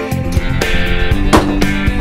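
Background music: guitar-led instrumental with strummed guitar and a steady drum beat.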